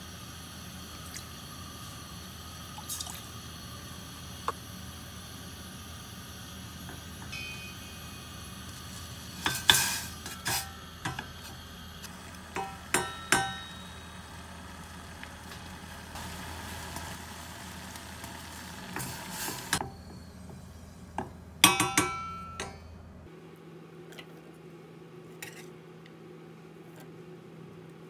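Cooking clatter at a stainless steel saucepan: ingredients poured in, stirred with a wooden spoon, and containers clinking and knocking against the pan. The knocks come in a cluster about ten seconds in and a louder burst about twenty-two seconds in, over a steady hum that stops suddenly soon after.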